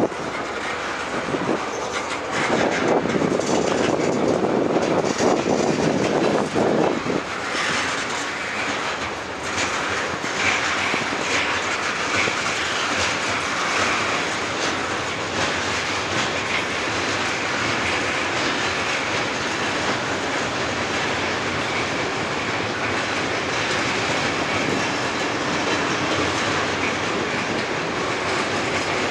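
Freight cars of a passing freight train rolling over a steel girder railroad bridge, with a continuous clattering rumble of wheels on rail. The sound is louder and deeper from about three to seven seconds in, then steadies.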